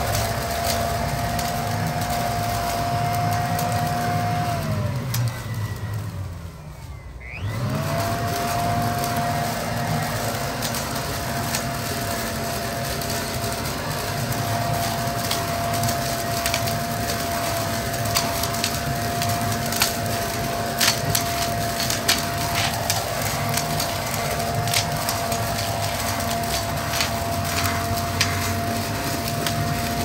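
Toro Ultra electric leaf blower vac running in vacuum mode, its motor and impeller giving a steady high whine. About four seconds in the whine winds down to near stop, then spins back up a moment later. Leaves and sticks are sucked through the impeller and tube, making frequent sharp cracks and snaps.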